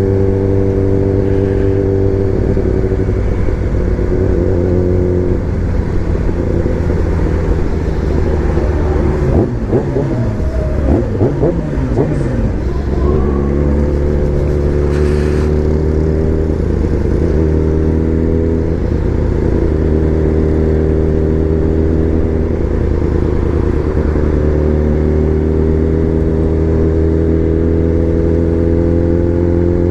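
Sport motorcycle engine running at steady cruising revs, with a stretch of wavering, shifting pitch about ten seconds in, then steady again and slowly rising in pitch near the end.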